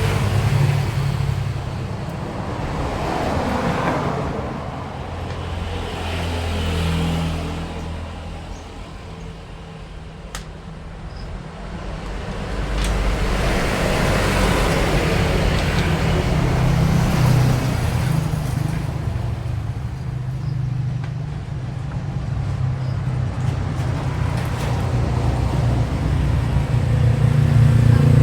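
Road traffic: several motor vehicles passing one after another, each rising and fading away, over a low engine rumble that grows louder near the end.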